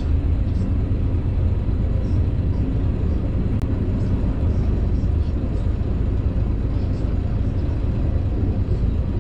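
Steady low rumble of a small tour boat under way, its motor running as it moves along the canal, with a brief dropout about three and a half seconds in.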